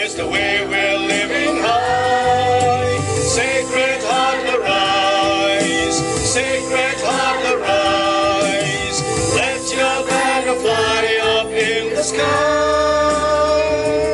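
Mixed choir of teenage students singing a song together through microphones, girls' and boys' voices together.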